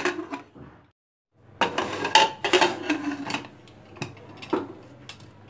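Aluminium pressure cooker lid being fitted and its handle locked shut: a series of metal clanks and clinks, with a brief break about a second in and two more knocks near the end.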